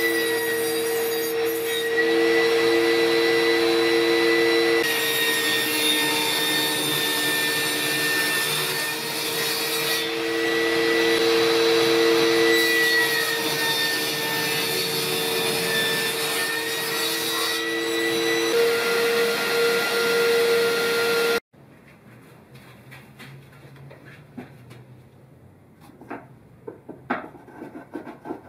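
Ryobi table saw running with a steady motor whine as its blade cuts a notch in a wooden block. About three-quarters of the way through it cuts off suddenly, leaving quiet with light wooden knocks and taps from the block being handled.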